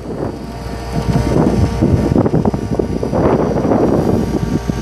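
The digger derrick truck's International DT466E diesel engine running to power the hydraulics while the boom moves, a steady hum under rough, gusting wind noise on the microphone.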